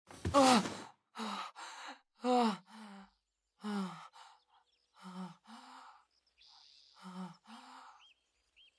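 A boy's voice gasps out loudly as he wakes with a start, then pants heavily in and out, about five breaths in pairs, each with a short voiced catch. A few faint bird chirps come near the end.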